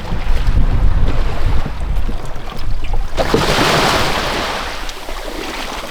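Wind rumbling on the microphone, then about three seconds in a sudden splash and rush of seawater that fades away.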